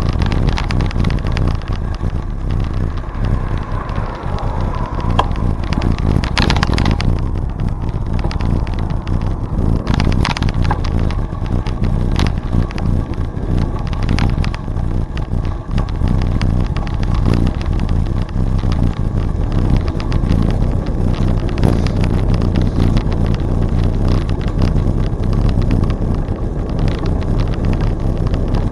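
Wind buffeting the microphone of a moving bicycle, over the steady rumble of its tyres on the trail, with a few sharp clicks and rattles.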